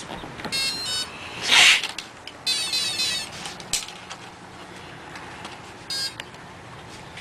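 Align T-REX 450SE v2 electric RC helicopter powering up as its flight battery is plugged in: a loud snap as the connector mates, set among several short electronic beep and tone sequences from the electronics, with a click.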